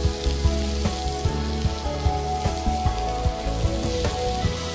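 Chicken patties sizzling as they are laid one by one onto a very hot nonstick grill pan, a steady crackling hiss over background music.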